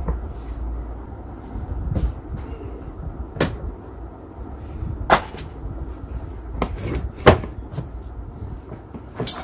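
A handful of sharp knocks and clicks of hard objects being handled, a second or two apart, over a low steady rumble.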